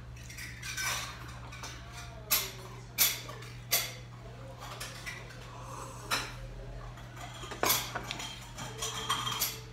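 Metal utensils clinking against ceramic and stainless-steel bowls and plates while eating, in a series of sharp, separate clinks every second or two.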